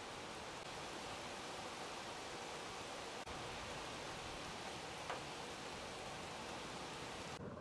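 Steady hiss of rain falling during a night thunderstorm. It cuts out for a moment about three seconds in, and its high part drops away just before the end.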